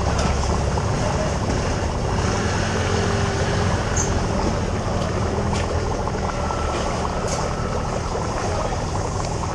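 Steady background din of a busy fish market, with a low rumble underneath.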